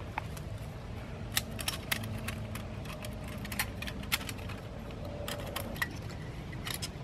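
Light metallic clinks and ticks as a small flat-pack metal twig stove is slotted together and pinned, then split sticks of wood knock against it as they are dropped in. A steady low hum sits underneath.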